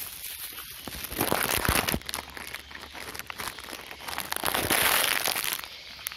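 Rustling and crackling of leaves, twigs and plant stems as someone pushes through forest undergrowth, in two bouts: one about a second in and a longer one near the end, with scattered snaps.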